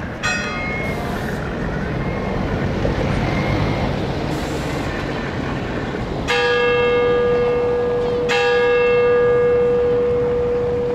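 Church bell struck three times: once just after the start, then twice about two seconds apart later on. The later strokes leave one steady humming tone that rings on. A steady low rumble of background noise runs underneath.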